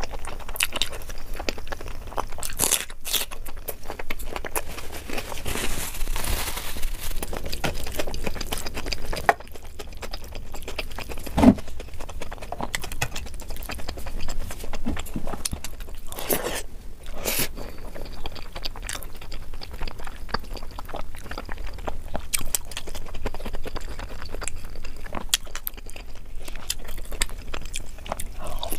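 Close-miked chewing and biting of chicken curry with rice eaten by hand, with many short crunches and clicks.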